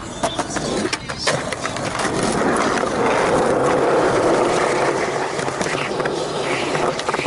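Skateboard wheels rolling on concrete, with several sharp clacks of the board in the first second or so, then a steady roll.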